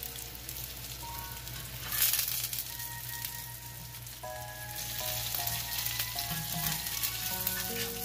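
Vegetable fritters sizzling in hot oil in a cast-iron skillet, the sizzle surging about two seconds in and again from about halfway as a spatula turns them.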